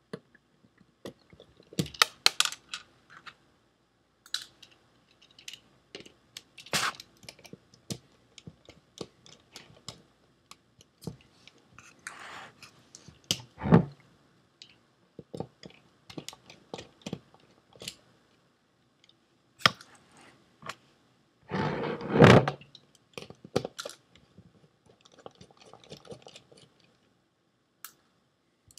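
Irregular clicks, taps and knocks of a screwdriver and hands working on the metal casing and parts of a Seagate ST410800N hard drive being taken apart, with a few louder knocks and a brief clatter about three-quarters through.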